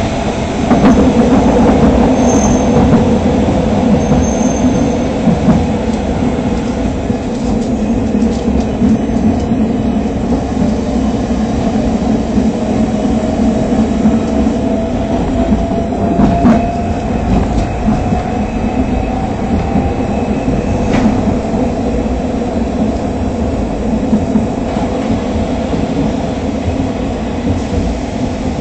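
Fukui Railway Fukubu Line tram running, heard from inside the car: a steady rumble of wheels on rail and the car's running gear. A faint whine rises slowly in pitch through the middle, and there are two sharp clicks later on.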